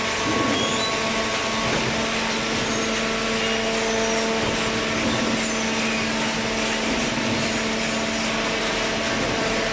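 Hydraulic vertical cardboard baler running: its electric motor and hydraulic pump give a steady hum and whine over an even mechanical noise.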